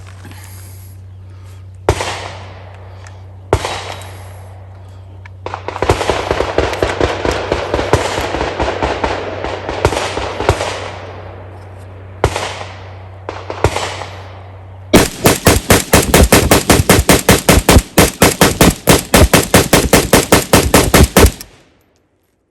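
AK-47 rifle in 7.62x39 with an SLR muzzle compensator, firing steel-cased ammunition from a 30-round magazine. A few separate shots come first, then a dense run of shots, then a fast string of very loud rapid fire that cuts off abruptly near the end.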